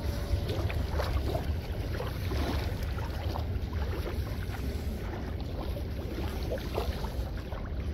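Steady low rumble of wind and river water, with faint rustles and small ticks as a magnet-fishing rope is gathered and coiled in gloved hands.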